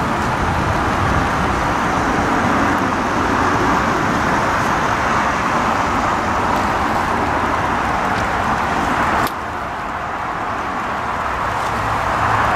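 Model train running on an outdoor garden track: a steady rolling rumble of wheels on rails. It drops suddenly about nine seconds in and builds back up near the end.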